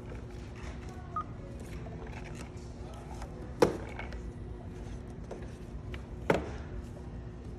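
Card payment terminal in use: one short beep about a second in, then two sharp clicks a few seconds apart, over a steady low hum.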